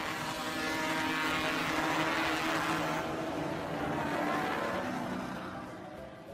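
A vehicle engine running steadily, fading away near the end.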